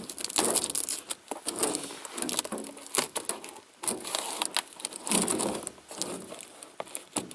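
A cardboard parcel box's packing tape being picked at and torn by hand: irregular scratching, crinkling and tearing of tape and cardboard.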